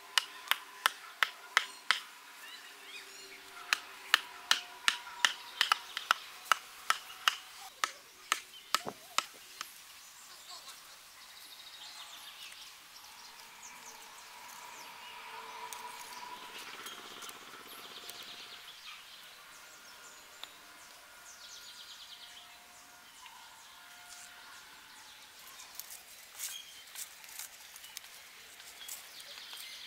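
A wooden mallet drives a wooden stake into the ground: a quick series of sharp knocks, about two or three a second, with a short pause after about two seconds. Then the knocks stop about nine seconds in, leaving birds calling over quiet handling sounds.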